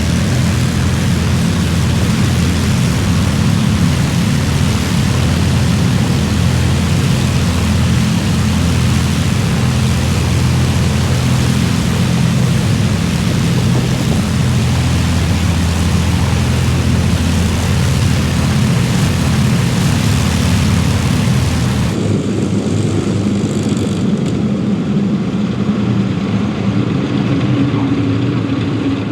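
Avro Lancaster bomber's four Rolls-Royce Merlin V12 engines running on the ground at the end of a taxi run, a loud steady deep drone with a rush of propeller wash over it. About three-quarters of the way through the rushing noise drops away abruptly, leaving the lower engine drone.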